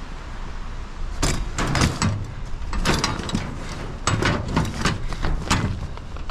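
Metal chair frames being shoved and packed into a trailer of scrap metal: a run of rattling clanks and knocks over a steady low rumble.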